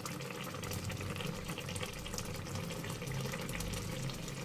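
Thin fish-curry broth simmering in a pot, a steady bubbling with many small pops.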